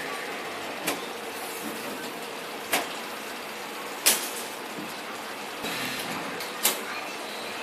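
Mango-shape pouch filling machine running with a steady hum, broken by four sharp clacks at uneven intervals, the third the loudest.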